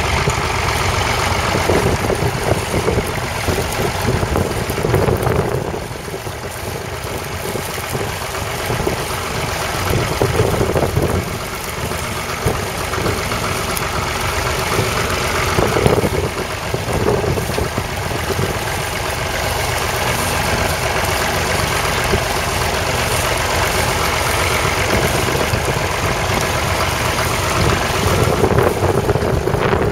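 1961 Massey Ferguson 35's 2.5-litre three-cylinder diesel engine running steadily under load while the tractor pulls a plough.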